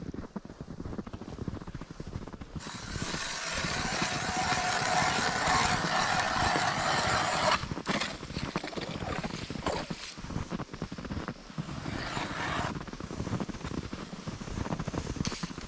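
Footsteps crunching through deep snow, with a loud, even hiss from about three seconds in that eases off around the middle and fades out later on.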